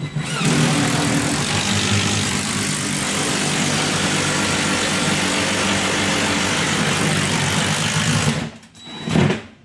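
Power drill running steadily under load for about eight seconds, cutting a hole in the drywall ceiling, then stopping, with a short burst of sound near the end.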